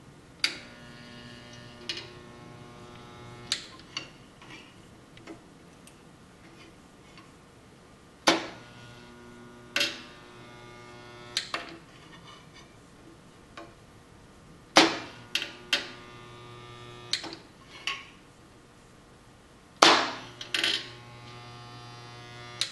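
Benchtop lever-operated resistance spot welder making four spot welds on stainless steel sheet. Each weld opens with a sharp crack, hums steadily for about three seconds while the weld spot glows, and ends with a click.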